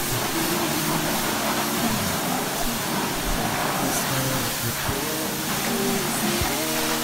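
Pressure washer spraying a car with a steady hiss from the water jet, with the washer's motor running underneath.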